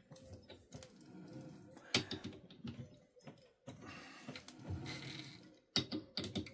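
Chuck key turning in a Myford lathe's three-jaw chuck, tightening the jaws on a steel bolt: quiet metal clicks and scraping, with a sharp clink about two seconds in and a few more near the end.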